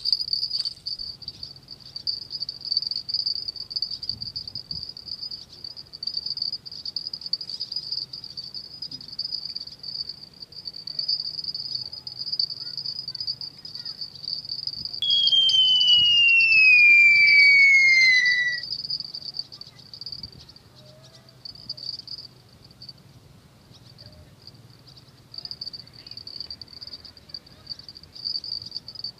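Insects buzzing steadily in a high chorus. About halfway through, a loud whine sets in suddenly and falls smoothly in pitch for three to four seconds before stopping.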